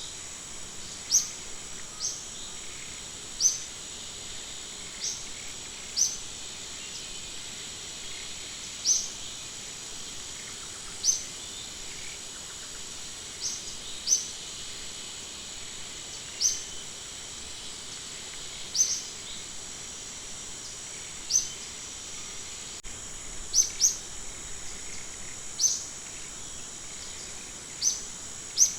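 An animal's short, high, upward-sweeping chirps, repeated every one to three seconds over a steady high insect-like drone.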